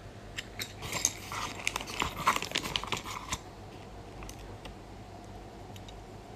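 Plastic blank keycaps on a mechanical keyboard clicking and clattering. A dense flurry of rapid clicks comes about a second in and runs for two to three seconds, then a few scattered clicks follow.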